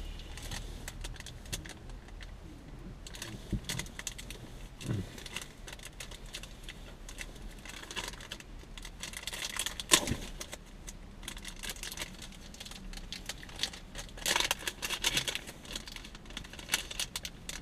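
Plastic packaging of soft-plastic fishing lures being handled and opened by hand: crinkling, small clicks and rattles, with one sharper click about ten seconds in, over a low steady hum.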